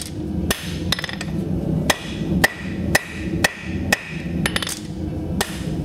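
Rounding hammer striking a hot steel horseshoe on a steel anvil, shaping the shoe with steady blows about two a second. Each blow gives a sharp metallic clang with a short ring.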